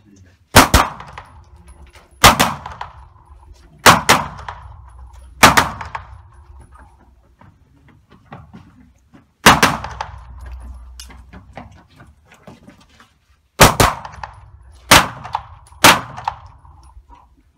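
Luvo LA-15 9×19 mm pistol-calibre AR-15 rifle firing about a dozen shots, some as quick pairs and some singly, with a gap of about four seconds midway. Each shot echoes off the concrete walls of an indoor range.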